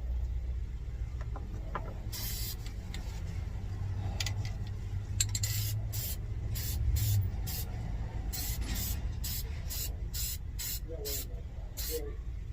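Aerosol spray paint can hissing in a series of short bursts: one longer spray about two seconds in, then quick squirts about two a second through the second half, as light trims are coated in passes.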